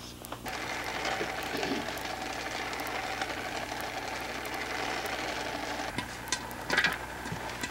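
West Bend Stir Crazy electric popcorn popper heating kernels in oil: a steady sizzling hiss and hum with a few faint ticks. About six seconds in it gives way to a few sharp clicks and knocks.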